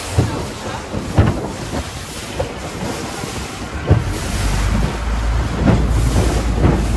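Wind buffeting the microphone over water rushing past the hull of a Thai long-tail boat under way, with a steady low rumble and a few sharp thumps, the loudest about a second in and near four seconds.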